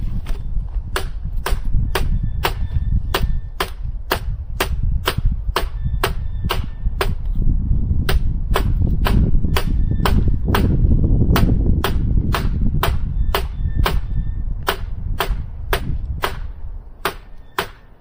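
Firewood being chopped by hand: steady, sharp chopping knocks, about two a second, over a low rumble.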